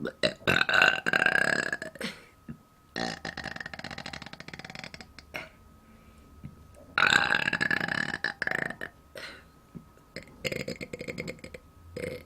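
A woman burping repeatedly: a loud burp about a second in that rises in pitch, a long rattling burp a few seconds later, another loud rising burp past the middle, and a shorter, weaker one near the end.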